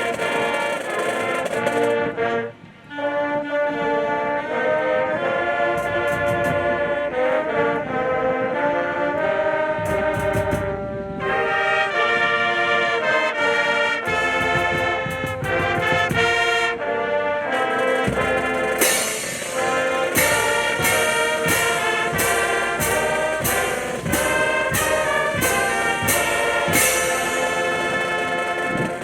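Brass band music, a wind band's horns playing a melody, with a brief break about two and a half seconds in. From about two-thirds of the way through, sharp percussion hits come roughly once a second.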